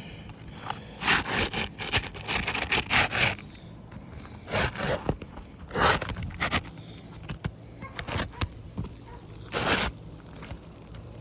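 Irregular scraping and crackling as asphalt roof shingles are worked by hand in a repair attempt, in short rough bursts.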